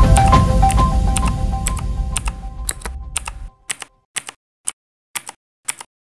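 Intro jingle with held tones fading out over the first few seconds, overlaid with a keyboard typing sound effect. After the music dies away, separate key clicks, often in quick pairs, tap out as the text is typed.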